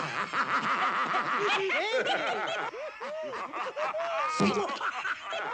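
A gang of cartoon alley cats snickering and chuckling together, several voices laughing over one another in short rising-and-falling bursts.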